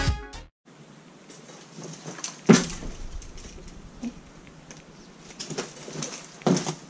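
Music cuts off in the first half second, then a few short knocks and clatters of garden tools being handled, the loudest about two and a half seconds in.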